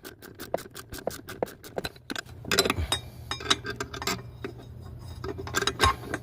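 Hand socket ratchet clicking rapidly and evenly, about ten clicks a second, while tightening a bolt on the EGR parts. About two seconds in, the clicking gives way to irregular metallic clinks and knocks over a low steady hum.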